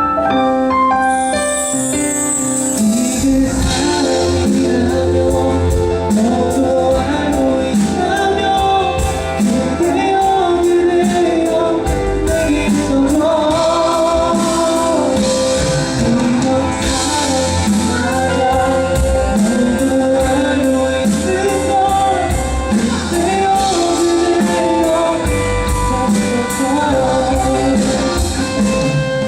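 A male singer performing a pop ballad live over a band, with a drum beat and cymbals entering about three seconds in.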